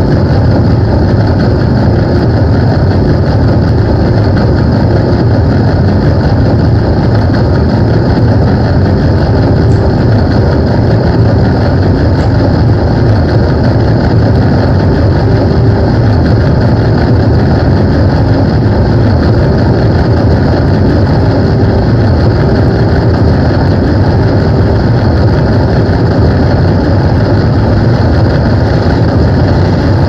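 A loud, steady drone of heavily distorted guitar effects from a pedalboard: a dense, engine-like wash with no breaks or distinct attacks.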